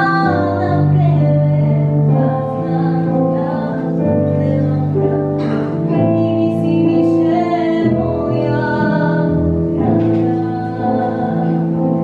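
A girl singing a slow melody in long held notes, accompanied by an electric keyboard playing sustained chords and bass notes.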